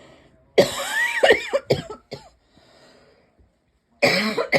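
A person's dry little cough from dry air, not illness: a quick run of several coughs starting about half a second in, then another cough near the end.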